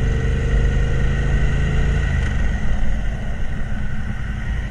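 Motorcycle engine running under heavy wind rumble on the microphone; the engine's hum fades about two seconds in, leaving a steady low rumble of wind and road.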